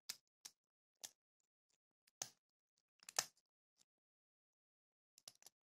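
Faint, scattered clicks of a lockpick working the pin tumblers of a brass padlock under tension, about seven ticks over several seconds, the loudest about three seconds in.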